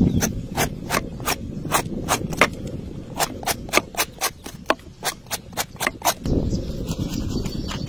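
Metal peeler scraping the skin off a soursop in quick short strokes, about four a second, over a low rumble that gets louder about six seconds in.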